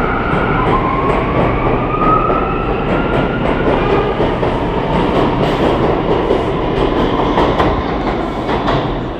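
NYC Subway R179 train running through the station: a steady loud rumble with a whine that rises slowly in the first seconds. In the second half, a run of sharp wheel clicks over the rail joints.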